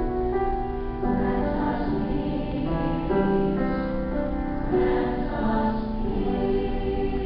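Mixed choir of women's and men's voices singing long sustained chords, the harmony shifting every second or so.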